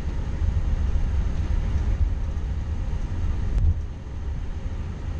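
Steady low rumble of an Airbus A340-600 flight deck while the airliner taxis, with a faint click about three and a half seconds in.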